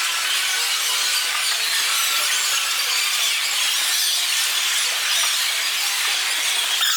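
Basketball shoes squeaking on the hardwood court amid steady arena crowd noise, with many short high squeaks and no single loud event.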